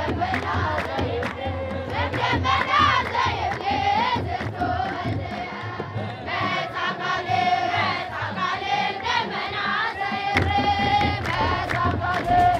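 A group of Ethiopian Orthodox choir singers chanting a hymn together, with steady hand-clapping and strokes on a kebero drum.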